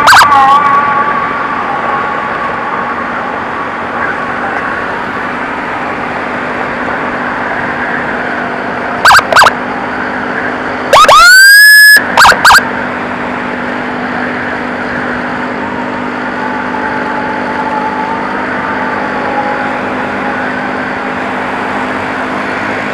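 Electronic emergency siren bursts over steady motorcycle engine and road noise: two short blips about 9 seconds in, then a loud rising wail held for about a second with two more quick blips right after it. A fainter wavering siren tone sounds underneath at times.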